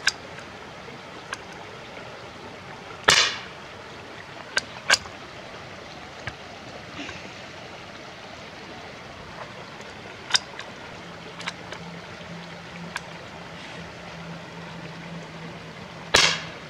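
Two shots from a Henry Mini Bolt single-shot .22 rifle firing .22 Short rounds: one sharp crack about three seconds in and another near the end. Between them come small metallic clicks as the bolt is worked and a fresh cartridge is loaded by hand.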